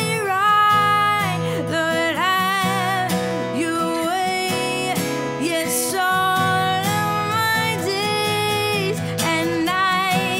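A woman singing an original worship song in long, wavering held notes, accompanying herself by strumming an acoustic guitar.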